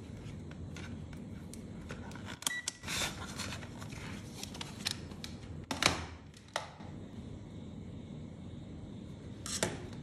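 Small clicks and knocks from a digital multimeter, its test leads and the meter's wires being handled and moved on a tabletop, with the loudest knock about six seconds in. A brief short beep comes about two and a half seconds in.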